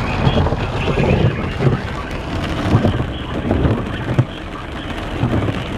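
Wind buffeting the microphone in uneven gusts over the low, steady rumble of a vehicle.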